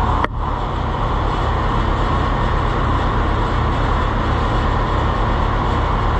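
Old farm tractor engines idling steadily, with an even low throb, broken by a short dip just after the start.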